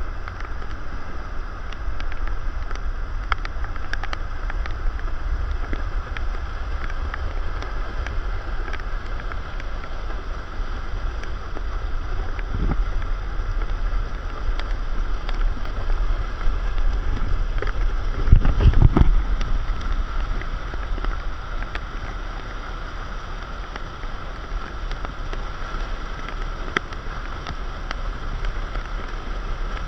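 Wind buffeting the microphone, a low rumble over a steady hiss, with a stronger gust about eighteen seconds in.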